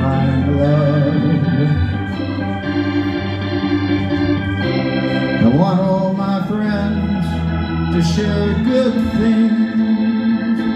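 Alesis electronic keyboard playing an organ sound: held chords that change every two to four seconds, as an instrumental introduction to the song.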